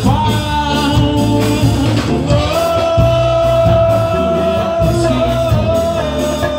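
Live ska band playing loud amplified music over a steady beat. A long note is held for about two seconds, then a lower one for about four seconds.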